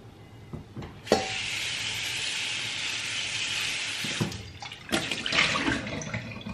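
Kitchen tap turned on with a click about a second in, and water runs steadily into a frying pan for about three seconds before easing off. A couple of sharp knocks follow as the pan is handled.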